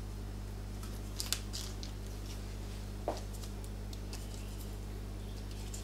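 Faint rustles and soft ticks of hands handling puff pastry on baking paper, a few about a second in and more near the end, over a steady low electrical hum.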